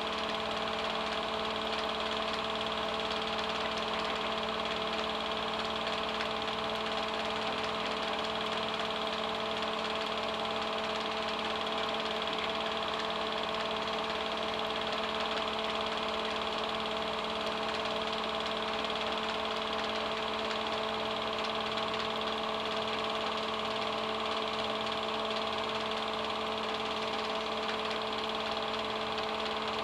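Film projector running: a steady hum of several fixed tones over a fast, even mechanical clatter.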